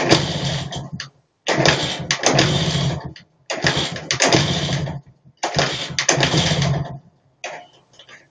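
IZh Planeta 2 single-cylinder two-stroke engine being kick-started over and over: each kick it fires for a second or so and then dies, four times in a row, with a weaker attempt near the end. The engine, freshly fitted with a new piston after standing 25 years, is catching but not yet keeping running.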